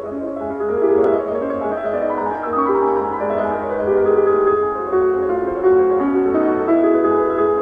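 Background music led by piano, with sustained notes moving in a slow melody.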